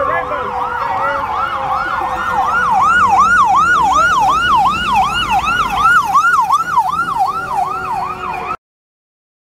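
Emergency vehicle sirens: one in a fast yelp, sweeping up and down about three times a second, over a second steady tone that slowly drops in pitch. The sound cuts off abruptly about a second before the end.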